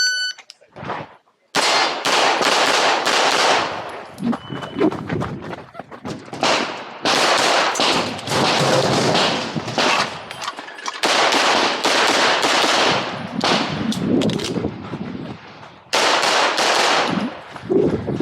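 Electronic shot-timer start beep, then rapid strings of pistol shots as a competitor fires through an IPSC stage, with several brief pauses between strings.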